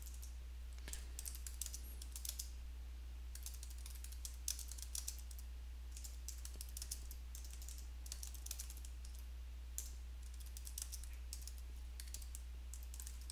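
Typing on a computer keyboard: irregular runs of keystroke clicks with short pauses between them, over a steady low hum.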